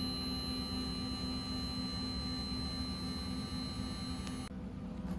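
Steady electrical hum with several constant high-pitched whines over it; the higher whines cut off suddenly about four and a half seconds in, leaving the low hum.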